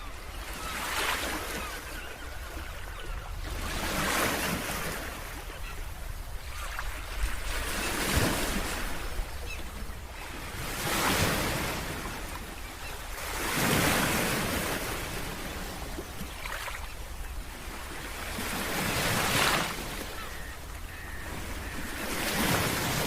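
Sea waves breaking and washing up on a beach, the hiss swelling and fading every three seconds or so, over a steady low rumble.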